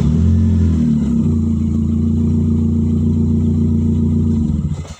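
Car engine with a leaking exhaust, just started: the revs flare briefly and settle to a steady, loud idle about a second in, then the engine is switched off just before the end.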